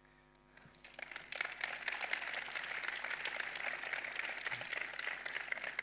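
Audience applauding, building up about a second in and keeping on steadily.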